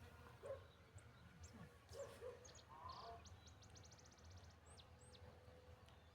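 Faint scattered animal calls over a low hum: short high chirps, a brief rapid trill of high clicks a little past halfway, and a few lower calls in the first half.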